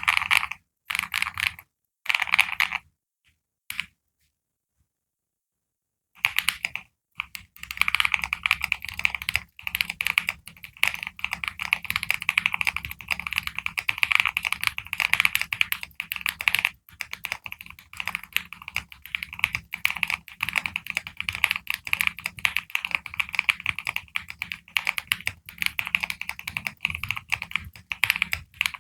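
Stock MMD KM40 40% mechanical keyboard being typed on: a few short bursts of keystrokes, a pause of about two seconds, then fast, continuous typing.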